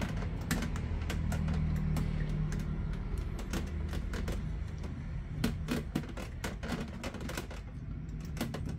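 Irregular small plastic clicks and taps as a new oscillation gearbox is handled and pressed onto a Sharp electric fan's motor by hand.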